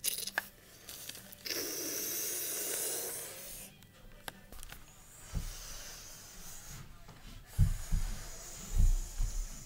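A breathy, hissing whoosh, like a spaceship engine, starting about a second and a half in and lasting about two seconds, then a softer hiss. Near the end there are a few low bumps and thumps, like a toy being handled.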